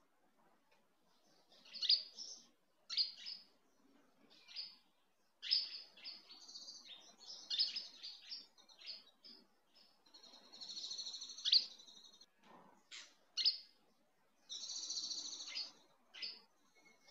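A bird chirping in short high calls, some falling in pitch, with two longer trills about ten and fifteen seconds in.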